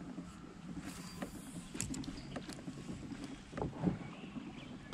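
Quiet water and small knocks and clicks from a fishing kayak, with two slightly louder knocks about three and a half seconds in.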